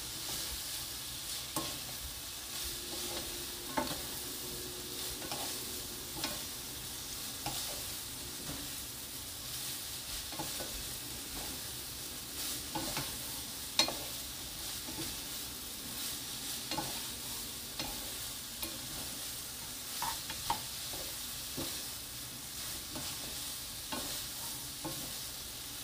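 Shredded dried filefish in a sticky chili-syrup glaze sizzling in a nonstick frying pan while two wooden spoons stir and toss it, knocking against the pan about once a second, one knock louder near the middle. The glaze is nearly done.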